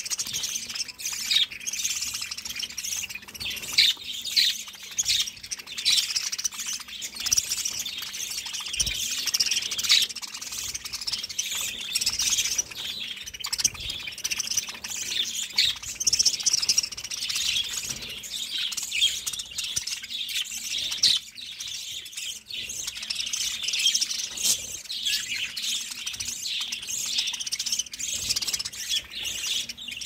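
A flock of budgerigars chirping and chattering continuously, many high-pitched chirps overlapping with no break.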